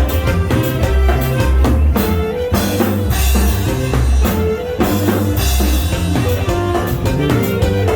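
Dance music with a drum kit, bass and guitar playing a steady beat.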